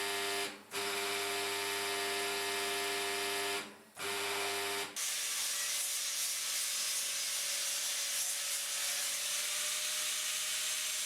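Small electric power tool working cast bronze: a steady motor whine that dips out twice, then a rough, even grinding hiss from about five seconds in, as the surface of the bronze castings is cleaned up and blemishes are ground away.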